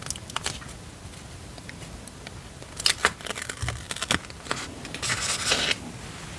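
Paper and sticker handling on a planner page: soft rustling and scattered light clicks, busiest about three seconds in, then a scratchy peel lasting under a second a little after five seconds, as of a sticker pulled from its backing sheet.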